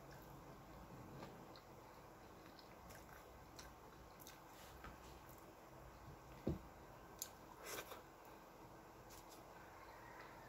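Faint sounds of a person eating a meal of fish and rice by hand: soft chewing with a few small clicks and taps against the plate.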